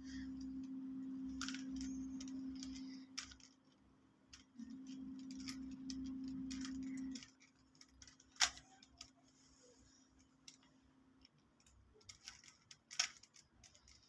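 Scattered plastic clicks and clacks of a Rubik's cube being turned by hand, with one sharper click about eight seconds in. A steady low hum runs under the first three seconds, breaks off, and comes back until about seven seconds in.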